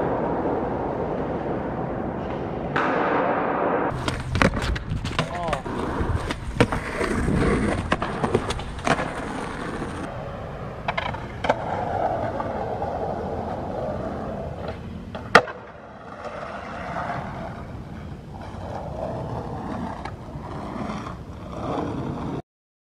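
Skateboard wheels rolling on concrete, with repeated sharp clacks of the board popping and landing, and one especially sharp, loud crack about two-thirds through. The sound cuts off abruptly near the end.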